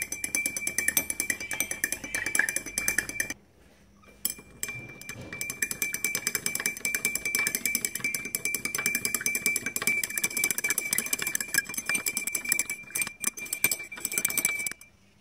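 Glass stirring rod clinking and scraping rapidly against the inside of a glass beaker while stirring ferric sulfate to dissolve it. The clicking stops for about a second, roughly three and a half seconds in, then carries on.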